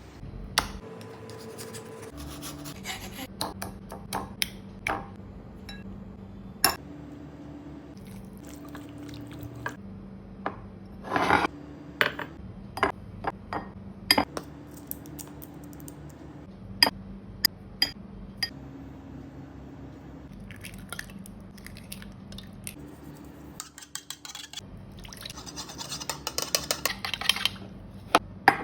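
Kitchen utensils and dishes clinking, tapping and scraping during food preparation, with scattered sharp clicks throughout and a dense run of quick clinks near the end.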